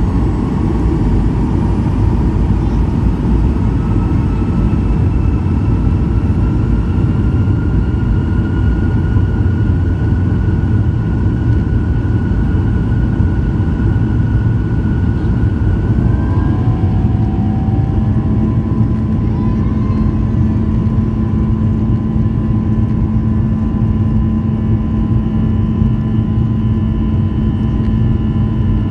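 Boeing 737-800's CFM56 jet engines spooling up for takeoff, heard from the cabin over the wing: a loud, steady rumble under thin engine whines that slowly rise in pitch. More whine tones join about halfway through as the aircraft gathers speed down the runway.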